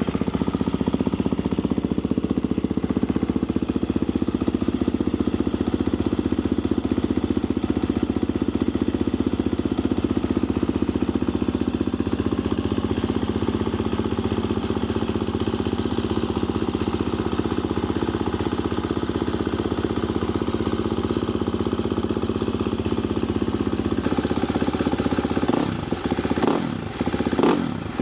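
KTM XC-F 350 single-cylinder four-stroke dirt bike on its stock exhaust, idling steadily just after a cold start. Near the end the throttle is blipped a few times.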